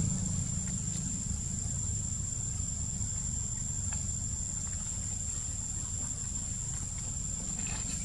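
Steady high-pitched drone of insects over a low rumble, with a few faint ticks.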